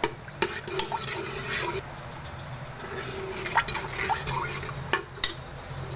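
Steel ladle stirring ghee as it heats in an aluminium pot, sloshing the liquid and knocking sharply against the pot about six times, over a low steady hum.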